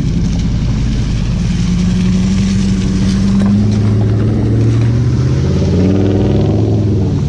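Jeep Grand Cherokee 4.7-litre V8 with a Flowmaster 40 Series exhaust, running under way. Its pitch climbs for a couple of seconds, drops back about three and a half seconds in, then rises again near the end.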